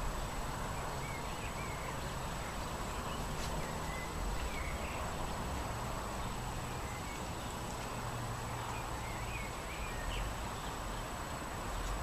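Steady outdoor wind ambience with a low rumble, and faint short bird chirps now and then.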